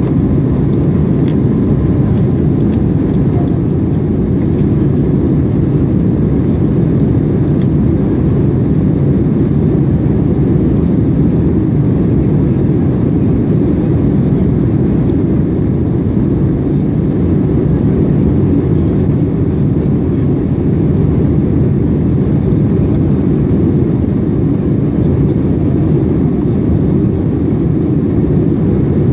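Airliner cabin noise in flight: a steady, heavy low rumble of engines and rushing air.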